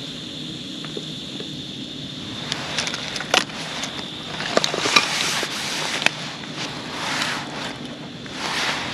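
Steady rushing hiss of the fire heating a two-tier steamer, with scattered crackles and sharp ticks; the rush swells briefly about halfway through and again near the end.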